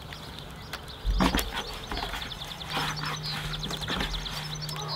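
Soft bread dough being folded, pressed and thumped by hand on a floured wooden board, giving a few dull thumps, the loudest about a second in. A quick high chirping trill runs in the background from about the middle on.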